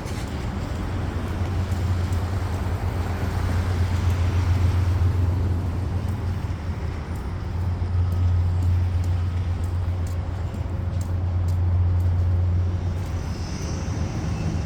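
A sleeping child snoring, each breath swelling and easing roughly every four seconds over a steady low rumble.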